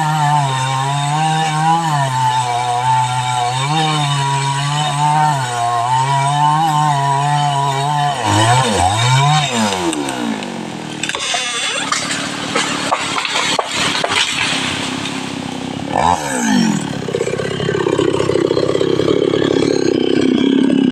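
Two-stroke chainsaw cutting a mahogany tree, running at high revs with small wavers under load for the first eight seconds. The revs then drop and climb back, followed by a rougher, noisier stretch with many sharp cracks and clicks.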